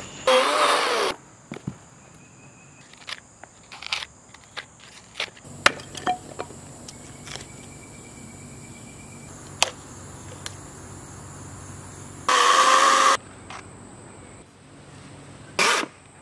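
Stump being cut apart and chipped away from an aluminum cast: a few short, loud bursts of a chainsaw cutting into oak, one near the start, one about twelve seconds in and a brief one near the end, with scattered sharp knocks of hand tools striking the wood in between.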